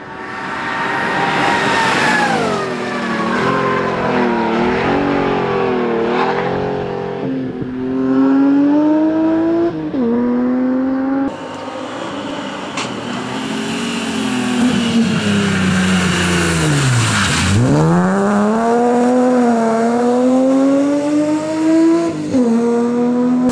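BMW M3 rally car's engine driven hard on a stage, revving up and dropping sharply in pitch at each gear change, three times. Midway the revs fall steeply to low and climb back up under acceleration, as the car slows for a corner and pulls out of it.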